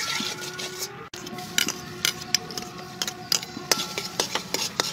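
Metal ladle scraping and knocking against a steel wok, mostly sharp irregular clicks. The first second holds a hiss of hot oil, which breaks off suddenly.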